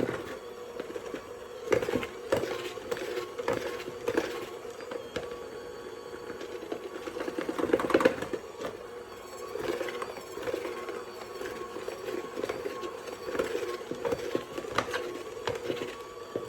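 Dough being stirred in a mixing bowl: irregular knocks and scrapes of the utensil against the bowl, over a steady low hum.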